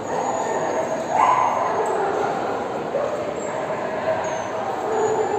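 A dog barking over the background chatter of people, the loudest bark about a second in.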